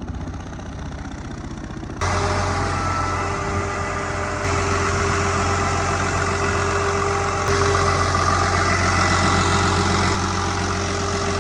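Diesel engine of a Dynapac CA702D single-drum soil compactor running steadily, heard over several joined clips: the sound jumps abruptly about two seconds in, again a couple of seconds later, and once more near the end.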